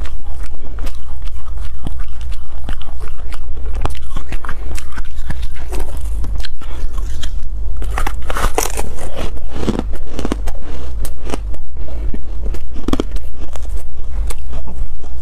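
Close-miked crunching and chewing of crumbly purple ice, a dense run of crisp crackles, with a louder bite about eight seconds in. A steady low hum lies underneath.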